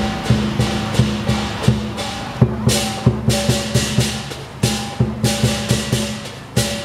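Lion dance percussion: a big drum beaten at about three strokes a second, with cymbals clashing along and crashing out twice in the middle.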